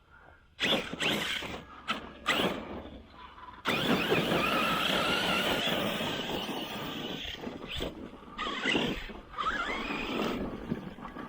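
Arrma Kraton 6S RC truck's brushless motor whining and its tyres on dirt and gravel. It makes a few short bursts of throttle, then a longer run of about four seconds starting a little under four seconds in, then more short bursts.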